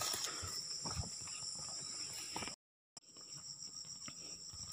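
Steady chorus of insects, a shrill high chirring that holds without a break, with a few soft thumps. The sound cuts out completely for about half a second a little past halfway.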